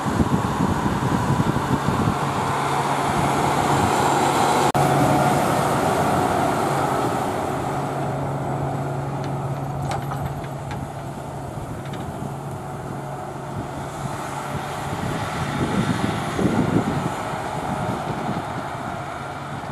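Case IH Quadtrac 620 tracked tractor's diesel engine running steadily under load while pulling a Horsch Tiger disc cultivator through stubble, with the rushing noise of the working gear underneath. It is loudest in the first few seconds, then eases somewhat.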